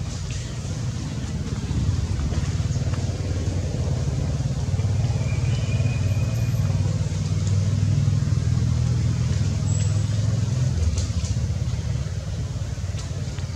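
An engine running steadily, a low hum that grows louder about two seconds in and drops back about eleven seconds in.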